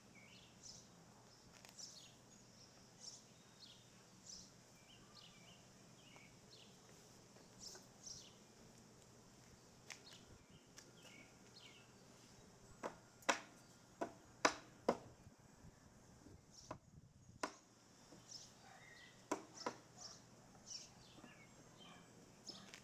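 Small birds chirping, faint short high calls scattered throughout. About halfway through comes a quick run of five or six sharp knocks, and a few seconds later two or three more.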